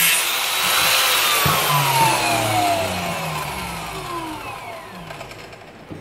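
Handheld angle grinder winding down after a cut through a plastic housing: its motor whine falls steadily in pitch and fades over about five seconds.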